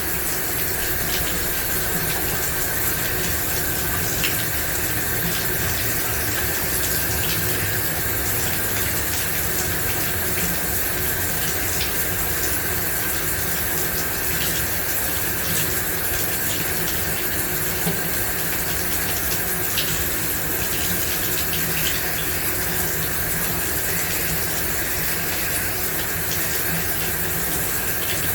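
Shower running: a steady, even spray of water with faint scattered droplet ticks.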